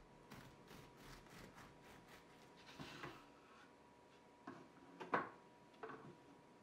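Quiet kitchen handling during food preparation: faint ticks, a short scrape about three seconds in, then three light knocks of utensils or dishes, the loudest about five seconds in.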